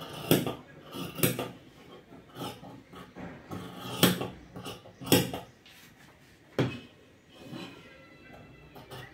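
Large dressmaking shears cutting fabric on a table: a handful of sharp metallic snips and clicks of the blades at irregular intervals, with soft rustling of the cloth between them.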